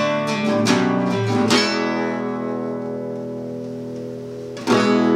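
Nylon-string classical guitar: a few quick strummed chords, then a chord left ringing for about three seconds before another strum near the end.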